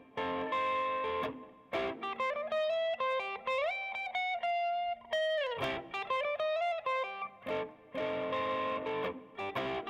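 Guitar playing an instrumental passage of melodic single notes and chords, with a note bent up a few seconds in and a slide down in the middle.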